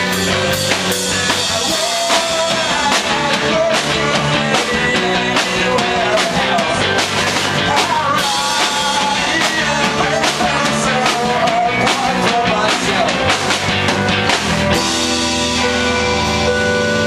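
Rock song with drums, guitar and singing. About fifteen seconds in, the drums stop and held, bell-like or keyboard notes carry on.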